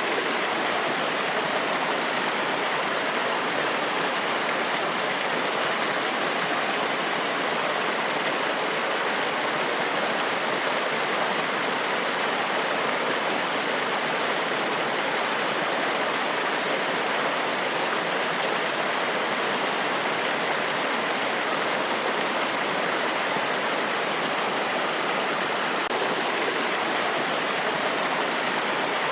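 A forest waterfall, water cascading over rocks in a steady, unbroken rush with little deep rumble.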